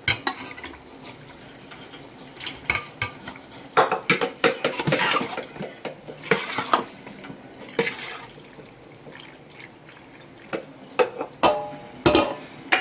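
Spoon stirring and scraping against a cooking pan in irregular bursts of clinks and scrapes as cooked pasta is mixed into white sauce.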